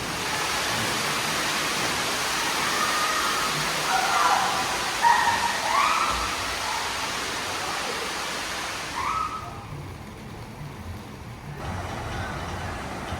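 Rushing water, like a waterfall or water-slide flow, with high-pitched shouts and calls of people over it several times; the rushing drops away about two-thirds of the way through.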